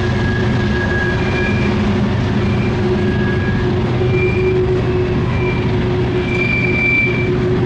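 Coal hopper cars of a freight train rolling past on a tight curve: a steady rumble, with the wheel flanges screeching against the rail in high, held tones that keep breaking off and returning.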